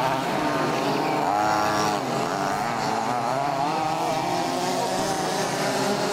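Several large-scale RC Baja buggies' small two-stroke petrol engines buzzing at once, their pitch rising and falling with the throttle as they race. One engine revs up and back down sharply between one and two seconds in.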